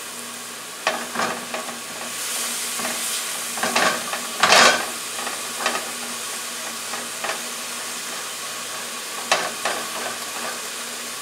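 Chopped onions and garlic sizzling in oil in a metal skillet, with a spatula scraping and knocking against the pan as they are stirred. The scrapes come at scattered moments, the loudest about four and a half seconds in.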